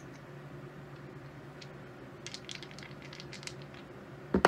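A run of light clicks from about two seconds in, then near the end a loud clatter as a pair of dice is thrown onto the craps table and tumbles to a stop.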